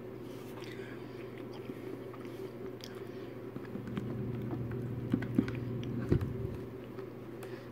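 Plastic spoon scraping and clicking against a plastic cup of pudding, with soft chewing, over a steady low hum.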